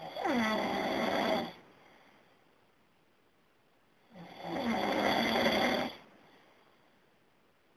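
A man snoring: two long snores about four seconds apart, each lasting under two seconds and opening with a falling pitch, with quiet gaps between them.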